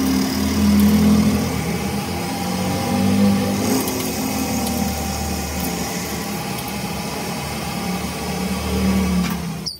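Metal lathe running, its chuck spinning a steel dumbbell rod while a cutting tool turns the rod's end: a steady motor and gearbox hum with the scrape of the tool cutting metal.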